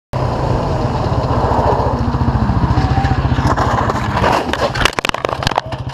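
A vehicle engine runs with a steady low, rhythmic thrum. Near the end comes a quick run of sharp knocks and clatter, and the engine keeps running through them.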